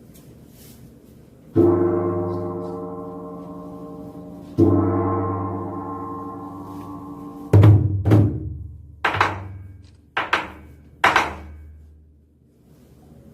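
A Korean drum performance: two single heavy strokes, each ringing on for about three seconds, then a quicker run of strokes, some close together in pairs.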